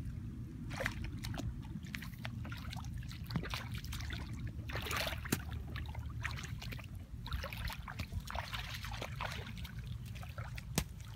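Shallow paddy water trickling and sloshing as a mud bank is dug with a hoe and by hand. Sharp knocks and splashes are scattered through, over a steady low rumble.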